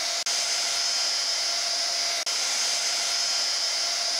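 Belt grinder grinding a steel knife blade, throwing sparks: a steady high-pitched grinding hiss with a faint steady whine. It is broken by two momentary gaps, one just after the start and one a little past halfway.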